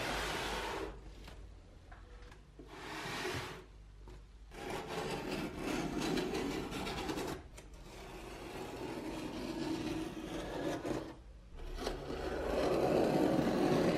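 Tape on a cardboard box being slit with a small blade and pulled off, in several scraping, rasping stretches of one to a few seconds each, loudest near the end.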